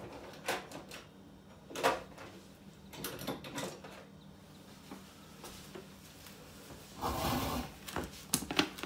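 A drawer being opened and shut, with scattered knocks and clatters of tools being gathered: the sharpest knock about two seconds in, and a longer sliding rustle about seven seconds in.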